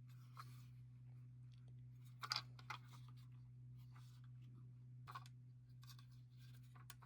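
Faint clicks and light clatter of a small diecast toy vehicle of metal and plastic being handled, loudest a little over two seconds in, over a steady low hum.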